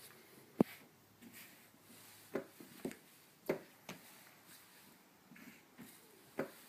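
Chess pieces knocked down onto a vinyl board and a digital chess clock's buttons pressed during a speed game: about six sharp clicks and knocks at irregular intervals, the loudest about half a second in.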